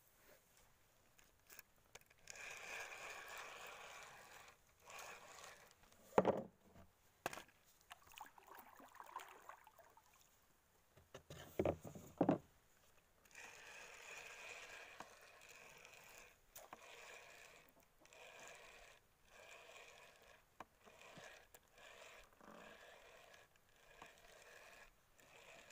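Fishing reel being cranked in stretches, its gears grinding and rattling like a motorbike chain on a sprocket with broken teeth: the reel's gear is worn out. A few loud knocks about six and twelve seconds in.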